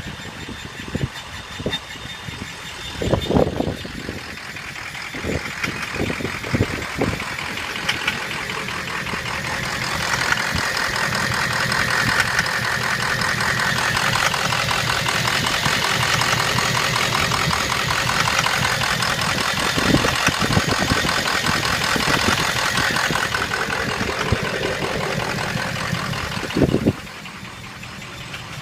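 Ford 6.0 Power Stroke V8 turbo-diesel running with sharp, irregular knocks, several in the first seven seconds and more later on; the owner cannot tell what is causing the knock. The engine gets louder through the middle, then drops back quieter shortly before the end.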